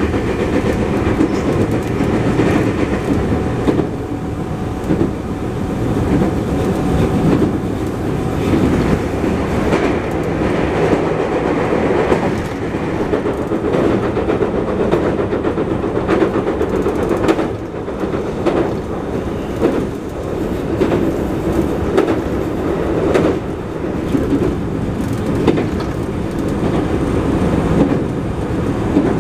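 Running noise of a JR West 221 series electric train: a continuous rumble of steel wheels on rail, broken by repeated short knocks. The car has a flat spot on a wheel, which gives a thudding flat-wheel knock.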